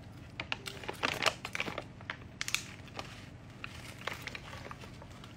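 Irregular crinkling and crackling close to the microphone, a dozen or so short crackles, loudest about a second in.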